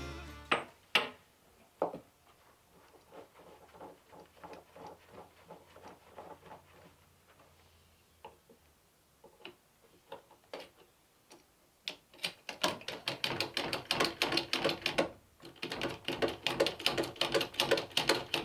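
Hydraulic bottle jack being pumped by hand under a log, each stroke of the handle giving a run of metallic clicks. The clicks start faint, with a few sharper knocks at the beginning, and become quicker and louder about two-thirds of the way in, with a brief pause near the end.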